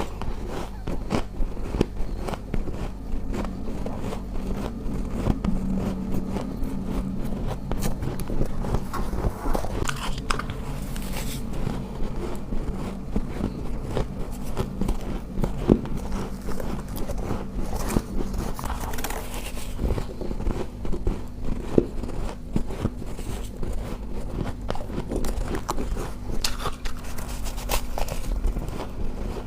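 Close-miked biting and chewing of freezer frost ice: a dense, continuous run of crunches and bites.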